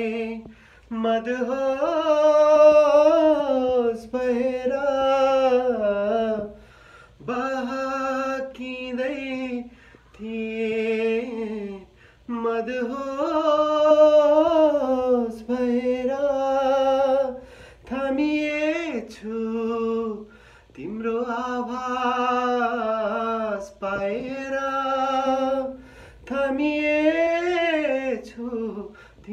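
A man singing unaccompanied, in phrases of long held notes that waver and bend in pitch, with short breaks for breath between phrases.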